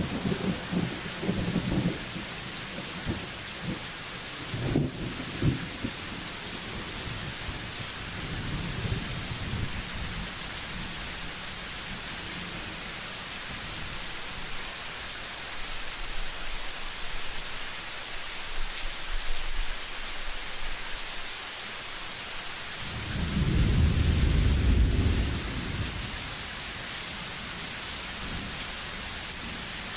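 Steady rain falling, with thunder rolling low in the background: a few rumbles in the first seconds and a louder, longer roll of thunder about two-thirds of the way through.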